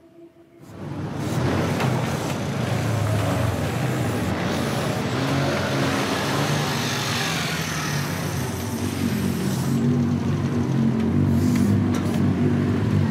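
Several motorcycle and scooter engines running as the riders pull in, the sound coming in suddenly under a second in and holding steady.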